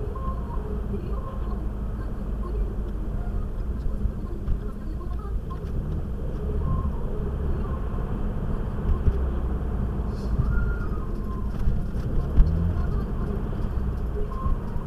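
Renault Mégane RS driving at night, heard from inside the cabin: a steady low engine and tyre rumble, with a short knock about twelve seconds in.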